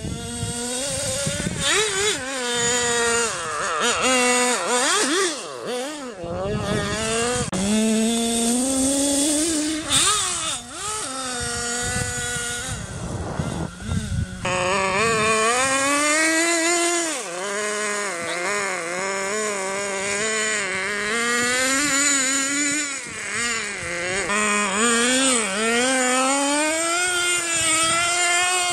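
Small two-stroke nitro glow engine of an RC snowmobile revving up and down, its pitch rising and falling again and again as the throttle is worked. The sound changes abruptly about halfway through.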